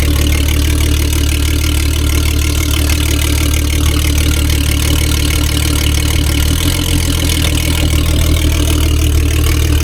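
Mercury Verado 400 hp outboard idling steadily in forward gear while it runs on flushing muffs, checked in gear after a water pump impeller replacement. Its low hum shifts slightly about two-thirds of the way through.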